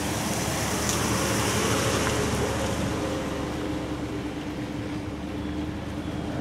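Ford Super Duty pickup truck driving slowly past at close range, its engine running with a steady low hum, louder about one to two seconds in.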